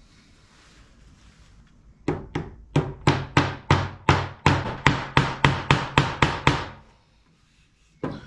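A hammer striking repeatedly, about fifteen sharp blows at roughly three a second, starting about two seconds in and stopping near seven seconds.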